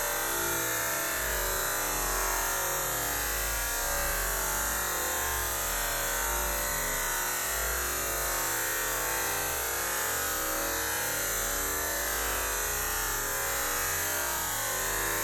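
Waterfall: a steady rush of falling water, an even hiss with no breaks.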